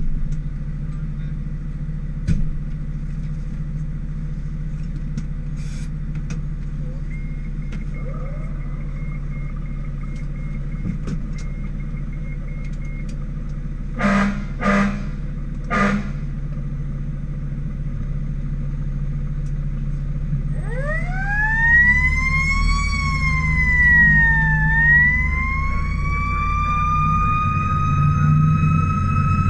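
Fire engine running, its engine a steady low hum, with three short blasts about halfway through. The siren then winds up in a rising wail, dips briefly and climbs again to a steady high wail.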